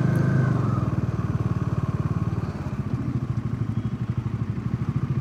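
Motorcycle engine running at low revs with a steady, even beat.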